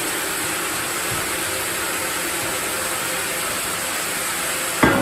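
Sawmill saw running with a steady, hissing mechanical noise and a faint high whine. A single sharp knock near the end, the loudest moment.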